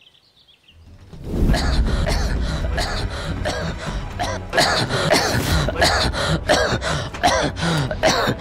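A sick man coughing and gasping over and over in distress, starting about a second in, with background music under it.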